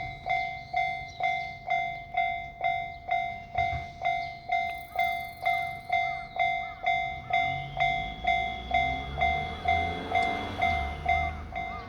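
Japanese railway level crossing warning bell ringing steadily, a little over two strikes a second. A passing train's rumble builds beneath it from about halfway.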